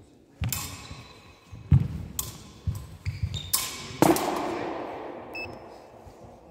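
Steel rapier and dagger blades clashing in a quick exchange: about six sharp clacks and thuds, some leaving a brief metallic ring. They echo in a large hall, the last and loudest dying away over a couple of seconds.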